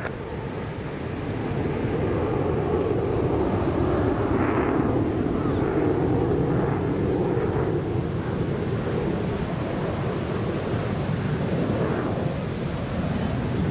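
Distant roar of an F-16 fighter jet's engine. It builds about a second in, holds steady, and eases slightly near the end, mixed with wind and surf noise.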